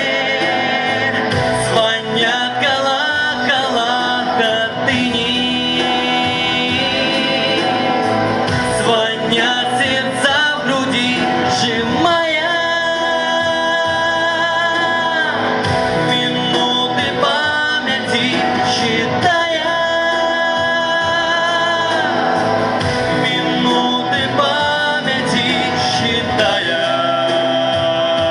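Music: a man singing a slow song with instrumental accompaniment, holding long notes with vibrato.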